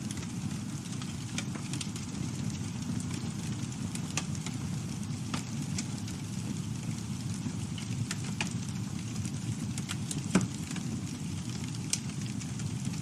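Campfire burning with a steady low rumble and scattered crackles and pops, the loudest pop about ten seconds in.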